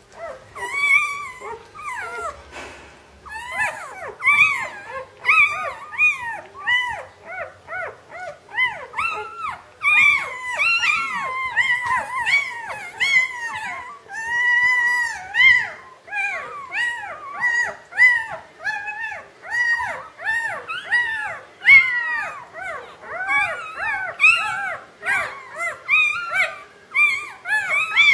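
Newborn German Shepherd puppies squealing and whimpering: many short, high, rising-and-falling cries that overlap without a break, as from several pups at once.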